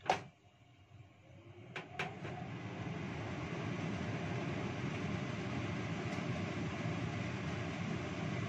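Kitchen range hood extractor switched on: a click, two more clicks about two seconds in, then the fan spins up and runs with a steady, even rushing drone.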